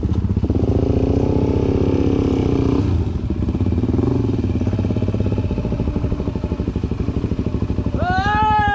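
Off-road motorcycle engine running at low revs, rising and easing off a couple of times as it is ridden through the creek crossing. A voice calls out near the end.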